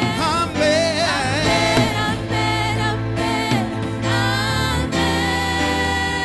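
Gospel worship music: a voice sings gliding, wordless runs over sustained chords and a steady bass.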